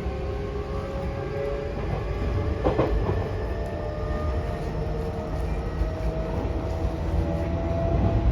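Mitsubishi IGBT-VVVF inverter and traction motors of an E233-2000 series electric train, heard from inside the car. They whine in several tones that climb slowly in pitch as the train gathers speed, over a steady rumble of wheels on rail, with a brief clack of a rail joint near three seconds in.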